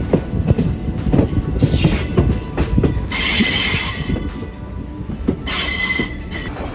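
Passenger train wheels knocking over rail joints and points, heard from the open doorway of a moving coach. A loud, high wheel squeal comes twice, about three seconds in and again near the end.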